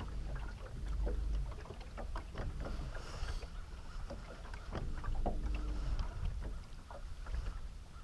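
Ambience aboard a small fishing boat on open water: wind rumbling on the microphone, water lapping at the hull, and scattered light knocks. A faint hum comes in briefly about five seconds in.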